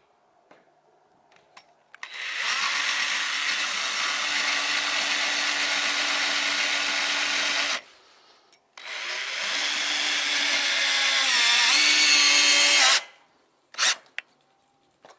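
Cordless drill running against a steel roof panel in two long runs of about five and four seconds, a steady whine that dips briefly in pitch and recovers near the end of the second run. A short sharp click follows about a second later.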